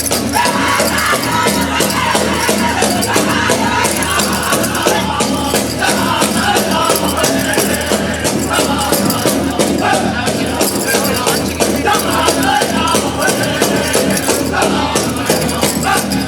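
Music with busy, fast percussion, playing steadily throughout.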